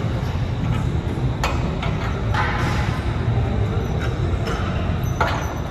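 Gym room noise: a steady low rumble with a few sharp knocks, about a second and a half in, around two and a half seconds in and near the end, during a barbell bench press.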